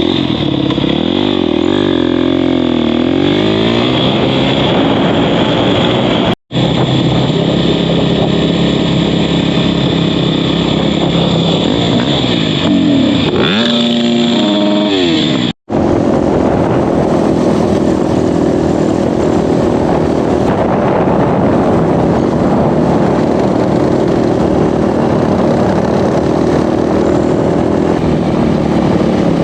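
Off-road vehicle engine running under way, its revs rising and falling a couple of times, then a steadier engine drone after two abrupt cuts.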